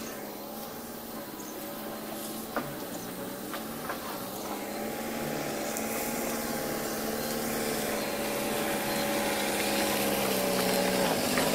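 Truck engine running steadily at idle, with a few faint clicks early on; it grows louder as the microphone comes up close behind the truck.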